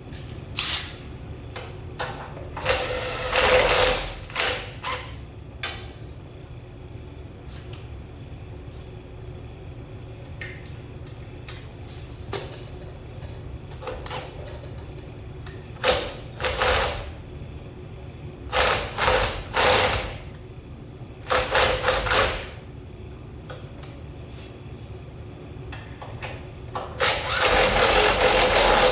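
A handheld power tool run in short bursts, about nine of them of around a second each, with a longer run of about two seconds near the end.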